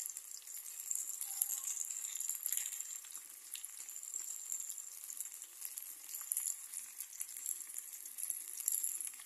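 Stuffed vegetables shallow-frying in oil in a steel kadai: a steady high sizzle with scattered small crackles.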